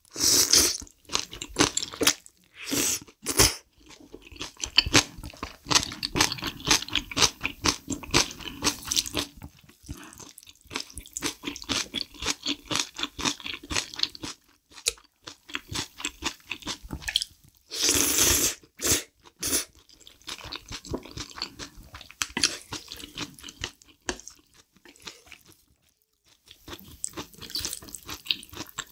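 Close-miked eating: loud slurps of saucy spicy black bean instant noodles near the start and again about 18 seconds in, with steady wet chewing and crisp crunching of kimchi in between.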